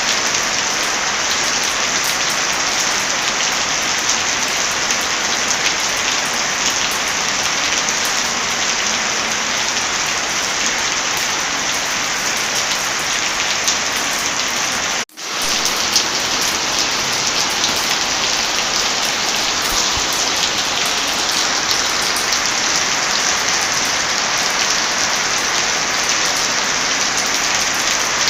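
Steady heavy rain, an even dense hiss with scattered sharp crackles and drop ticks. About halfway through, the sound cuts out for a moment and swells back in.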